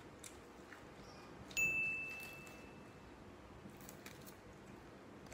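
A single high, clear chime-like ding about a second and a half in, fading away over about a second and a half. Around it are faint scattered clicks and rustles as rocket leaves are handled in a plastic tub.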